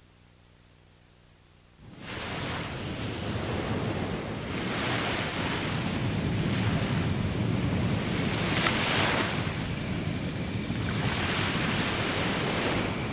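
Surf: small waves breaking and washing up a sandy shore, coming in after about two seconds of near silence with a low hum and then swelling and ebbing in several surges.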